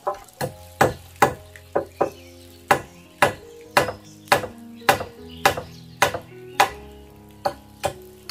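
A hand tool striking timber, about two blows a second, each one sharp and short, over soft background music.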